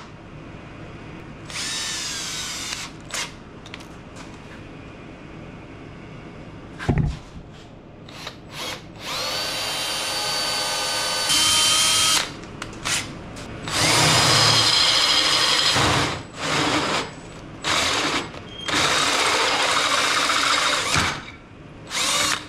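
Cordless drill running in about six short bursts, its motor whine starting and stopping, with one spin-down audibly falling in pitch. A single dull thump comes about seven seconds in.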